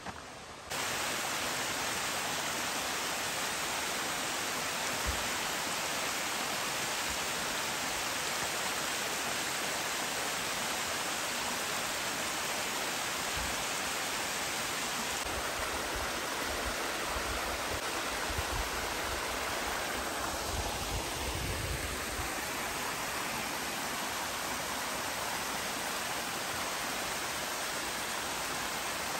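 Steady rush of a fast-flowing mountain creek that starts abruptly about a second in, with a few low bumps in the middle.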